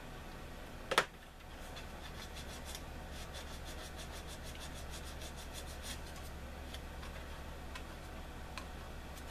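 Quick back-and-forth sanding strokes on the edge of a polystyrene model-kit wing part, about five strokes a second for several seconds, cleaning up and shaping the edge. A sharp click about a second in is the loudest sound.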